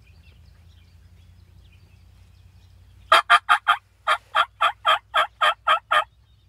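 Turkey yelping in a loud series of separate notes: four quick notes, a short pause, then eight more at about four a second.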